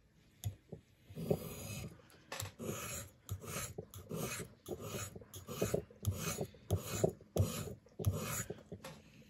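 The small knife blade of a Leatherman PST multitool being stroked back and forth on a sharpening stone. It makes a rhythmic scrape about twice a second, starting about a second in after a couple of light clicks.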